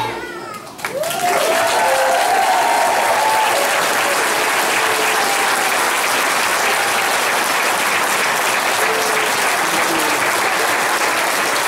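A large audience bursts into applause about a second in, just as the children's choir stops singing. Steady clapping runs on with whoops and cheers over the first few seconds.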